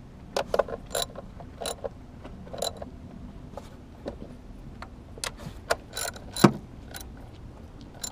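3/8-inch drive ratchet with a 10 mm deep socket clicking in short, uneven bursts as it tightens the engine cover bolts, with one louder knock about six and a half seconds in.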